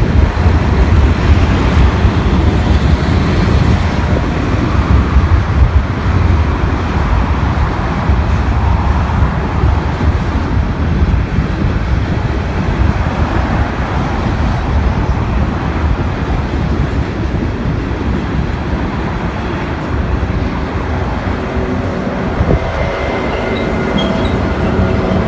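Herzog ballast train rolling past, with a steady rumble of its wheels on the rails. A few faint steady tones come in near the end.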